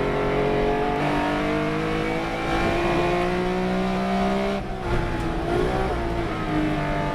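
Race car engine under hard acceleration, its pitch climbing steadily. About four and a half seconds in it drops sharply, rises briefly, then falls again and runs at a steadier pitch.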